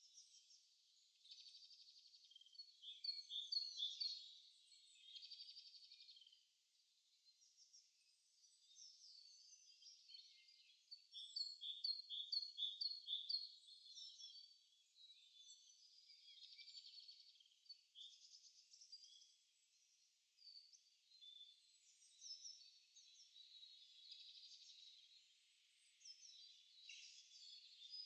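Several songbirds singing in overlapping phrases of quick high chirps and trills, with runs of repeated notes that grow louder a few seconds in and again around the middle.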